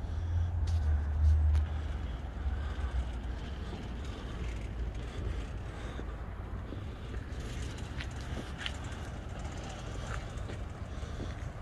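LiftMaster CSL24U commercial slide gate operator running, driving a large slide gate open along its track after a card-reader activation, heard as a low steady rumble that is loudest about a second in.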